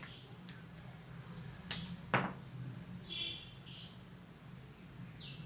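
Marker pen writing on a whiteboard: two sharp taps about two seconds in, and several short, high-pitched squeaks as strokes are drawn.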